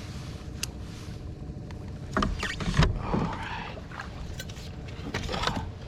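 Steady low hum of a small boat's motor while trolling, with knocks, rattles and rustling in the boat as a just-netted trout is handled; the loudest knocks come about two to three seconds in, with more near the end.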